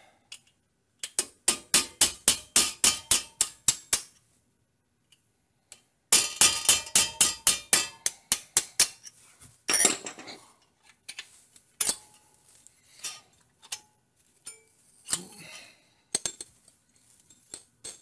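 Hammer striking a pin punch to drive the pad retaining pins out of a Focus RS's Brembo brake caliper: two runs of quick, ringing metallic taps, about four a second and three seconds each, with a short pause between. Scattered lighter metal clinks follow.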